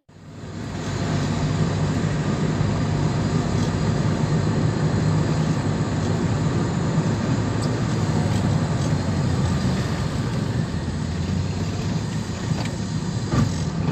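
A road vehicle on the move: steady engine hum and road noise, fading in over the first second.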